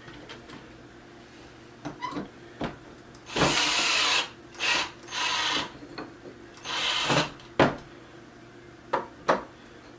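Power drill-driver run in about four short bursts, tightening the hardware of a flat-pack wooden cart, with several sharp knocks of wooden parts and tools in between.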